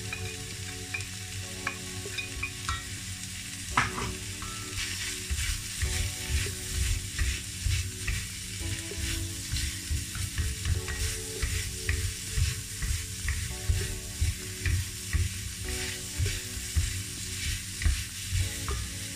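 Chicken, onion and freshly added grated carrot sizzling as they fry in a wok. Two wooden spatulas stir and toss the food against the pan, in regular strokes of about one or two a second from about five seconds in.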